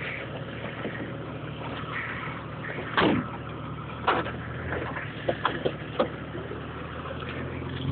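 Motor vehicle engine running low and steady, with scattered knocks and rattles over it, the loudest about three seconds in.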